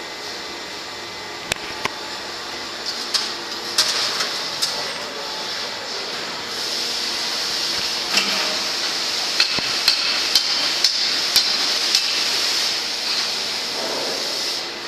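A powder-stirring machine running, with a steady rushing hiss that grows louder about halfway through. Sharp metallic knocks and clanks are scattered through it, coming about twice a second near the end.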